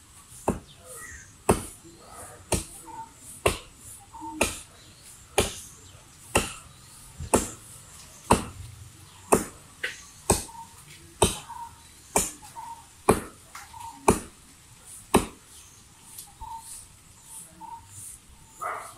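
Axe chopping into a coconut palm trunk by hand: sharp, evenly spaced blows about once a second, which stop about fifteen seconds in.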